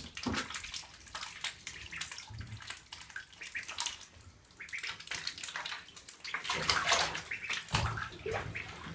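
Ducklings splashing and paddling in a tub of water, with small irregular splashes and a louder flurry of splashing about two-thirds of the way through as they dart across the surface.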